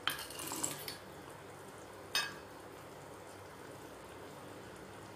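Coconut pieces and roasted gram tipped from a small steel bowl into a stainless-steel mixer grinder jar, clattering for about a second, then a single sharp clink about two seconds in.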